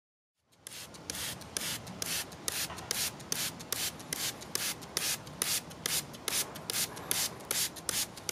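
Hand trigger spray bottle squirted over and over in quick succession, about three short hissing sprays a second, starting about half a second in.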